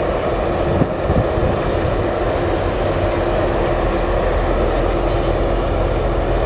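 Steady low drone of boat engines under a haze of water and wind noise, with a couple of light knocks about a second in.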